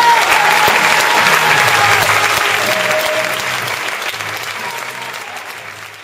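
Audience applauding, with music playing beneath; the sound fades down steadily toward the end.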